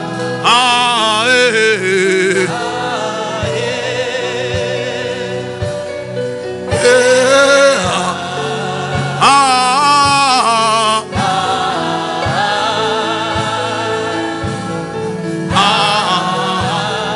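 Gospel song: singing with a wavering, vibrato-laden voice over sustained backing chords and a regular low drum beat.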